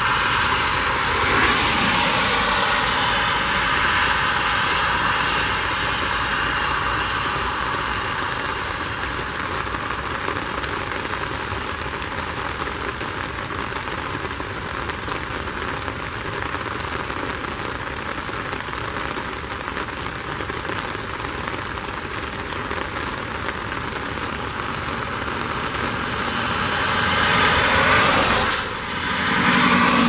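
Traffic passing on a wet road: a steady hiss of tyres on wet pavement, swelling as one vehicle goes by about a second and a half in and another near the end.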